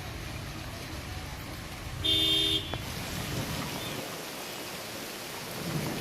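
Steady rain falling, with a single short car horn toot lasting about half a second, a little after two seconds in.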